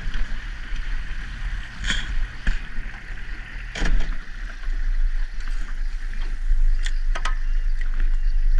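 Jet boat running on the river: a steady low rumble and water noise, broken by a few sharp knocks about two, four and seven seconds in.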